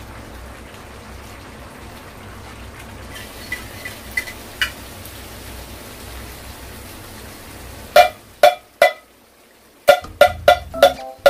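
Jackfruit and pork simmering in coconut milk in a pan with a steady hiss, and a metal spoon clinking lightly against the pan three times. About eight seconds in, music starts with loud plucked notes in a bouncy rhythm.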